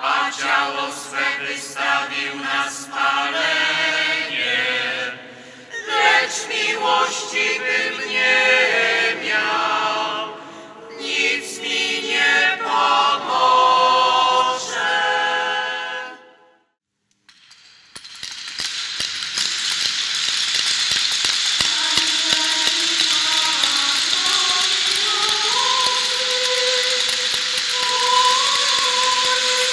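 Voices singing liturgical chant, cut off sharply about sixteen seconds in. After a second of silence, a wooden ratchet clapper (kołatka) rattles steadily, standing in for the silenced altar bells, with faint singing beneath it.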